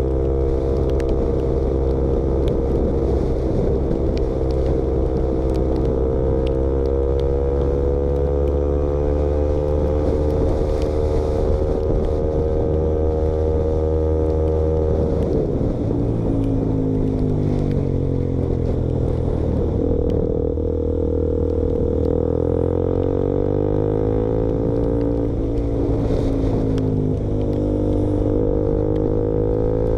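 KTM Duke motorcycle engine running through an exhaust with its baffle removed. It holds a steady engine speed, then about halfway through the revs drop and climb again, with a few more dips and rises near the end.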